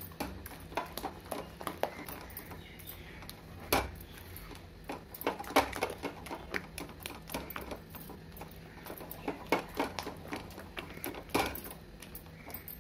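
A spatula stirring and scraping thick besan batter around a non-stick kadhai, with irregular clicks and scrapes against the pan and a few louder knocks. The batter is being stirred without stopping as it thickens, so that it doesn't stick to the bottom or form lumps.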